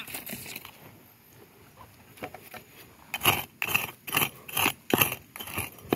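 A metal-bladed hand digger stabbing and scraping into dry, stony clay soil: light scrapes at first, then about seven quick, sharp strokes from about three seconds in.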